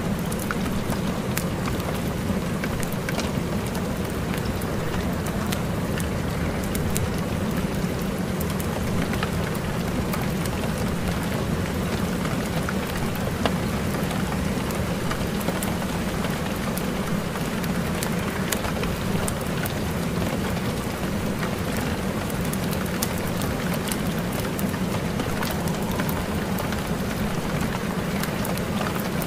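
Steady rain sound with many scattered drop ticks, unchanging throughout. It is the kind of rain track a subliminal recording lays over its quiet affirmations.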